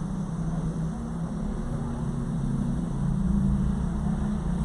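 Car engine and road noise from inside a moving car: a steady low hum that grows a little louder past the middle.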